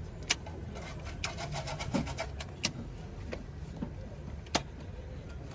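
A handful of sharp clicks and taps, with a quick run of them about a second in, over a steady low hum.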